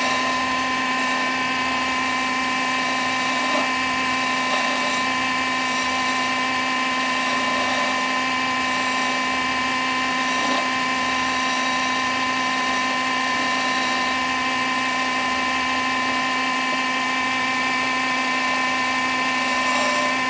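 Electric motor of a simple wood-turning lathe running at a steady speed, giving a constant, unchanging whine.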